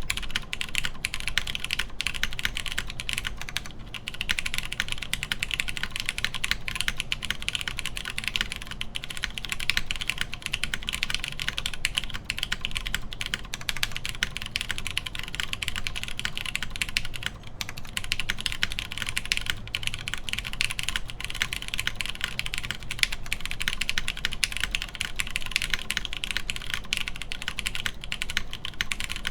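Fast, continuous typing on a mechanical keyboard with lubed Cherry MX Brown tactile switches, an FR4 half plate and GMK doubleshot ABS keycaps: dense key presses with brief lulls at about 4 and 17 seconds in.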